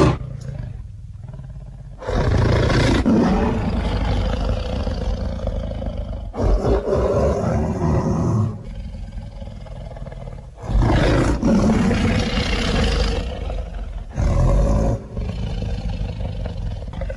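A male lion growling over its meat while feeding. The growls come in several long bouts of a few seconds each, with quieter gaps between.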